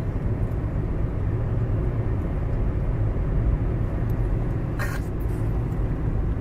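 Steady low rumble of car road and engine noise heard from inside the cabin while driving, with a short burst of rustling noise about five seconds in.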